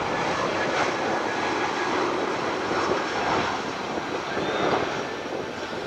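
Jet engines of a Vietjet Air Airbus A321-200 landing, passing close on final approach: a steady rush of engine noise with a faint high whine, easing off slightly near the end.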